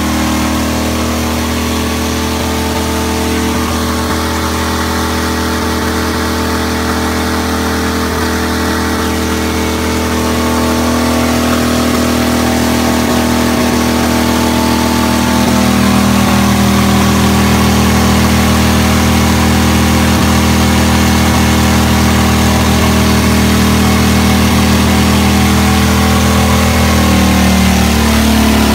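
1942 Harley-Davidson WLA's 45-cubic-inch flathead V-twin running at a steady speed on a chassis dynamometer. It grows a little louder about halfway through, and its pitch shifts near the end.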